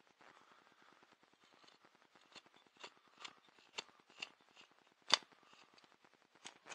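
Carving knife slicing thin shavings off a small wooden paddle: a string of short, crisp cuts, the loudest about five seconds in, as saw marks are pared away.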